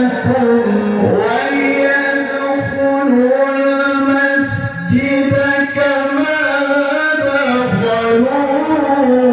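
A man reciting the Quran in the melodic tajwid (tilawah) style, drawing out long, ornamented notes that bend and turn in pitch in one continuous phrase.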